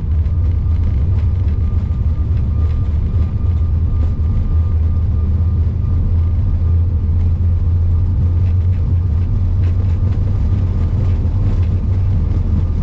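Steady loud low rumble inside the cockpit of an Airbus A340-600 in its take-off phase, the engines and airflow under power, with a faint high steady tone above it.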